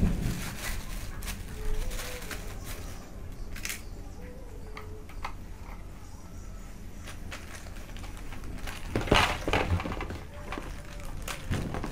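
Hands handling plastic-bagged drone parts: rustling plastic with scattered light clicks and knocks, the loudest cluster about nine seconds in, over a low steady hum.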